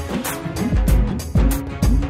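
Background music with a steady beat and deep bass-drum hits.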